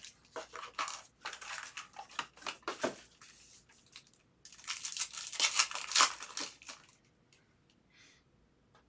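Foil trading-card pack wrappers being crinkled and torn open, in scattered crackles for about three seconds, then a louder stretch of crinkling and tearing before it goes quiet for the last two seconds.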